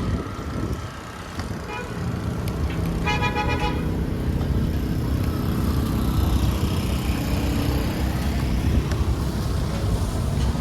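City street traffic: vehicles running past with a steady low rumble, and a short car-horn toot about three seconds in.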